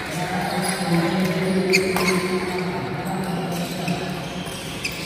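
Badminton rally: several sharp racket strikes on the shuttlecock, irregularly spaced, over the steady background murmur of a large sports hall.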